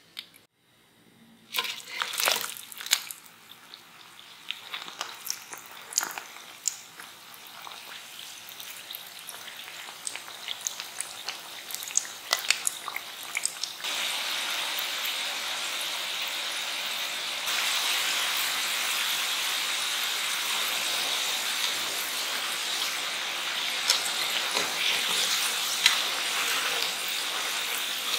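Potato sticks deep-frying in hot oil for their second fry. At first scattered pops and crackles slowly build, then from about halfway there is a steady, dense sizzle that gets louder a few seconds later, with a couple of sharp clicks near the end.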